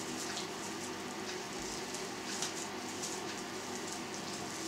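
Plastic stretch wrap crackling faintly as it is cut and peeled off a wrapped roll of meat, with a few light crinkles over a steady low room hum.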